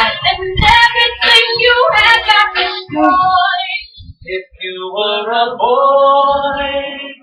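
Female voice singing a slow pop ballad, with a long held note near the end.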